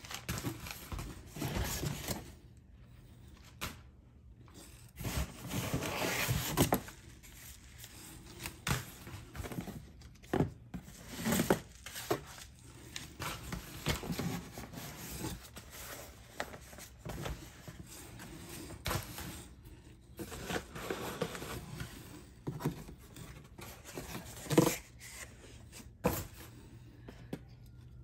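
Cardboard boxes and padded paper mailers being handled and pulled out of a packing box: irregular rustling, scraping and sliding of cardboard, broken by short knocks, the sharpest one about three-quarters of the way through.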